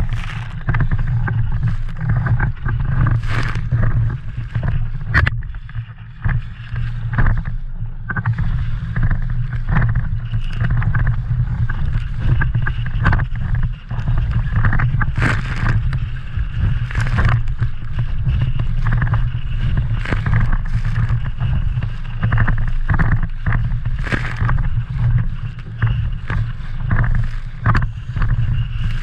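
Sounds aboard a small inflatable sailing dinghy under way: a steady low wind rumble on the microphone, with frequent irregular splashes and slaps of water.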